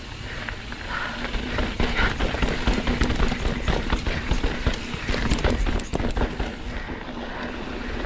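Mountain bike clattering over a rocky trail: a dense run of knocks and rattles from the tyres and frame hitting rocks, over a low rumble of wind and rolling noise.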